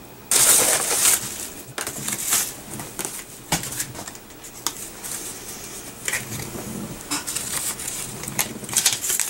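Paper or card packaging handled close to the microphone: a loud burst of rustling just after the start, then irregular crinkling with scattered taps and clicks.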